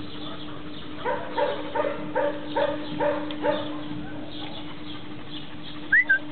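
A run of about six short animal calls, two to three a second, over a steady low hum; near the end a brief sharp rising high note, the loudest sound.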